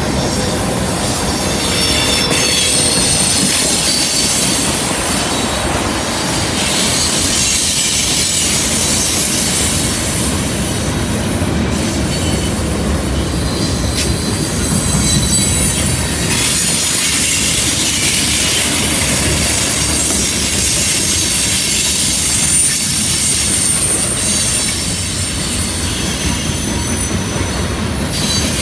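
Freight cars rolling past on a curve: a steady rumble of steel wheels on rail, with high-pitched flange squeal coming and going.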